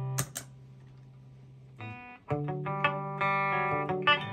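Electric guitar with custom-wound Porter humbucker pickups, played through an amp: a ringing chord is cut off right at the start with two sharp clicks, then after a short pause a run of picked single notes and double-stops begins about two seconds in.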